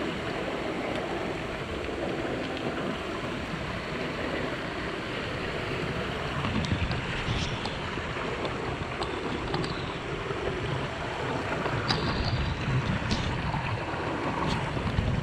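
Mountain stream rushing over rocks: a steady, even water noise with a few faint ticks scattered through it.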